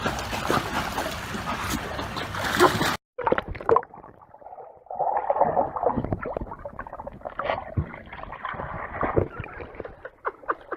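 Water splashing and churning as many dogs swim in a pool. After a sudden cut about three seconds in, muffled gurgling and scattered splashes as a dog swims under water and breaks the surface.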